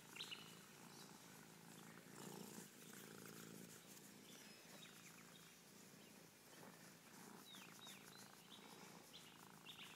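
A stubby-tailed Manx-type cat purring faintly.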